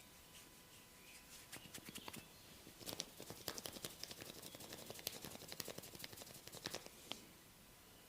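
Massage hands working on skin: a rapid, irregular run of light clicks and pats. It begins about a second and a half in, is thickest in the middle and stops shortly before the end.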